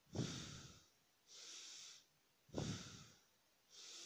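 A man breathing deeply and rhythmically close to the microphone, yoga-style: softer hissing breaths alternate with stronger, fuller breaths, about one cycle every two and a half seconds.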